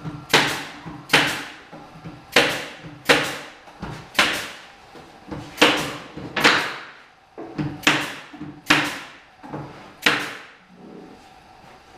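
A nail gun firing into plywood cabinet parts: about a dozen sharp shots at roughly one a second, stopping near the end.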